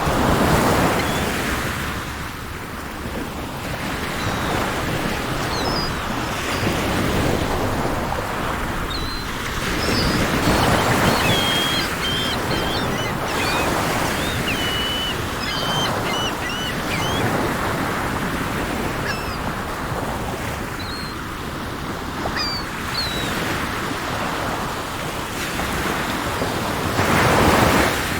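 Sea waves breaking in slow swells, with the surf loudest near the start, about a third of the way in and just before the end. Birds chirp with short high calls above the surf, mostly in the middle.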